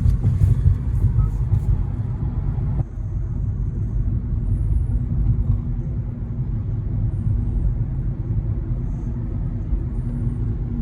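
Steady low rumble of a car driving, heard from inside the car. A lighter hiss on top drops away about three seconds in.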